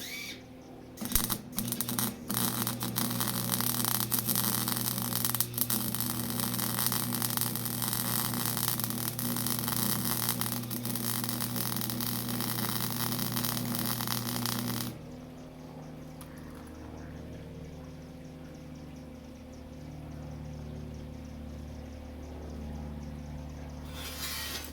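Electric welding arc crackling and hissing with a steady electrical hum under it. It starts with a few short strikes about a second in, runs steadily for about fourteen seconds, then cuts off suddenly, leaving only a low hum and a brief hiss near the end.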